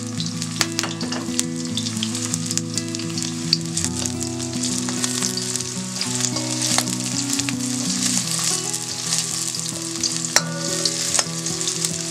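Chopped shallots sizzling and crackling in hot sesame oil in a stainless steel kadai as they are stirred, with a metal spoon scraping and now and then clicking against the pan.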